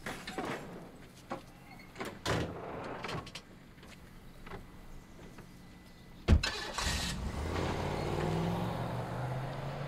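Knocks and clatters of a lawnmower being pushed into a car's open trunk, then a car door slams about six seconds in and the engine starts, running steadily and rising in pitch as the car pulls away.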